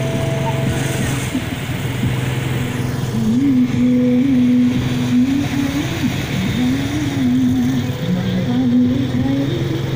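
Motorbike engines running steadily as the bikes and a motorbike-based float roll along. From about three seconds in, a single voice holds long, wavering notes over the engine noise.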